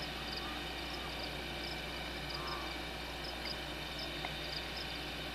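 Swamp ambience: short, high chirps from small calling creatures, often in pairs, repeating every half second or so over a steady low hum.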